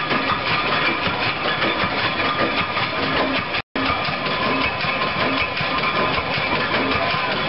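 Large Page Engineering Co. stationary engine running steadily, a dense mechanical din with steady ringing tones over it. The sound drops out completely for a split second just before four seconds in.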